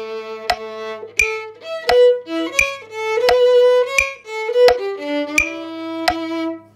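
Violin bowed in a slow melody of held notes, with a sharp click keeping steady time about every 0.7 seconds, like a metronome. The playing stops near the end.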